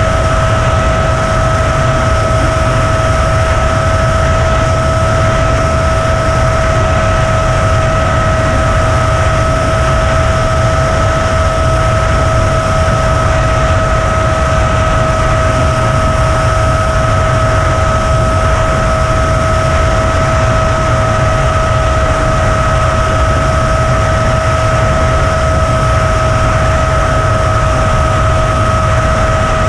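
FPV quadcopter's motors and propellers running at an unchanging speed: a steady high whine over a constant rushing noise.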